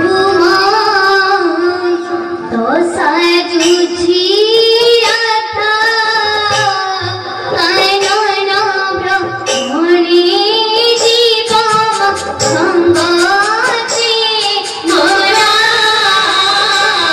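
A girl singing an Odia devotional theatre song in a high voice, holding long, wavering notes that slide between pitches, phrase after phrase.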